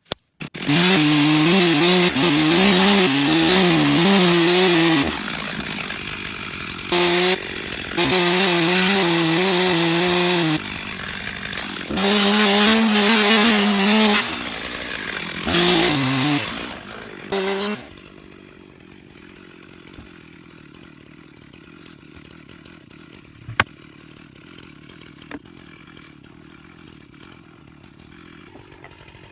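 Stihl chainsaw cutting into a large Douglas fir log, opened up to full throttle in several long stretches, with the engine note wavering under load and dropping back briefly between them. The saw stops about eighteen seconds in, leaving a faint background with a couple of sharp clicks.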